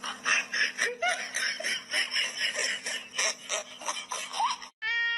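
Someone laughing in quick repeated bursts. Just before the end a cat starts a long, steady-pitched meow.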